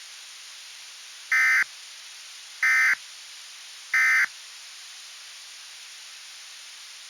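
Three short Emergency Alert System end-of-message data bursts, the SAME EOM tones that close a warning broadcast. They come a little over a second apart, over a steady hiss.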